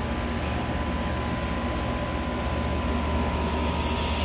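Dog whistle blown in one long, high-pitched tone, starting about three seconds in, over a steady low rumble. The whistle is plainly audible to human ears.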